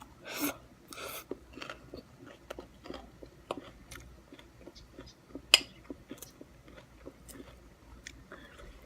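A person chewing food close to the microphone: soft wet mouth sounds and small irregular clicks, with two crackly bites in the first second and a half and a single sharp click about five and a half seconds in.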